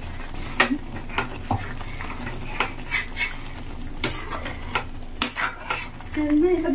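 Metal spatula stirring and scraping thick chickpea curry in a steel kadhai, clinking irregularly against the pan about twice a second over the bubbling of the simmering gravy. The curry is starting to catch on the bottom of the steel pan.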